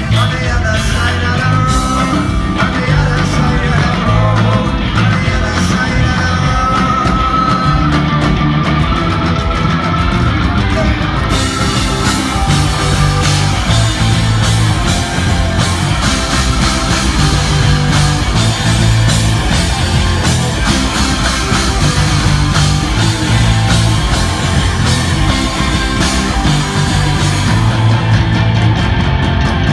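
A rock band playing live and loud: electric guitars, bass, keyboard and drums, with the cymbals coming in harder about eleven seconds in.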